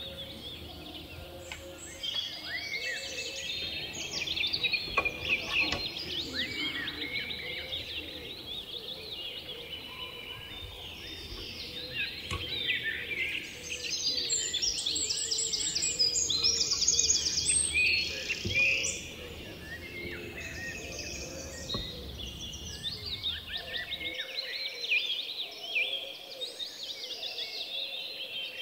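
Small birds chirping, a continuous chorus of short overlapping falling calls, with a fast high trill about two-thirds of the way through. A low background rumble under the birds cuts off abruptly near the end.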